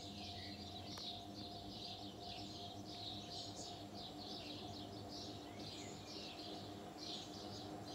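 Many birds chirping without a break over the steady low hum of a running ceiling fan's motor.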